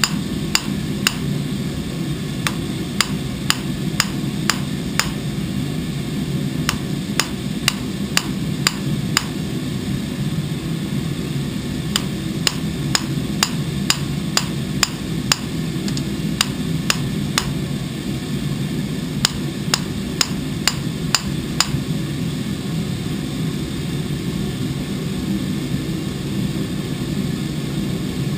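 Hand hammer striking a long steel blade on a block anvil: sharp metallic blows about two a second, in runs broken by short pauses, stopping a little over 20 seconds in. A steady low hum runs underneath.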